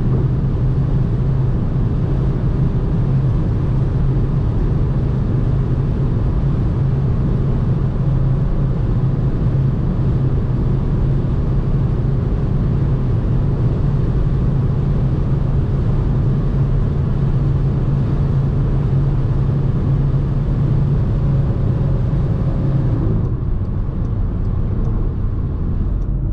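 2010 Škoda Octavia's 1.9 TDI four-cylinder pumpe-düse turbo diesel driving at a steady speed: a constant engine drone with road and wind noise, the revs holding without change. Near the end the higher hiss drops away.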